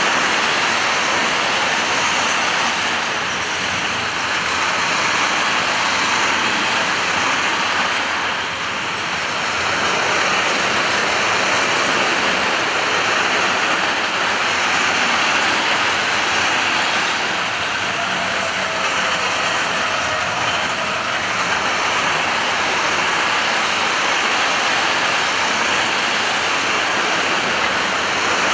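Freight train of container and tank-container flat wagons rolling past close by: a steady rush and rumble of wheels on rail, with a brief high squeal about halfway through.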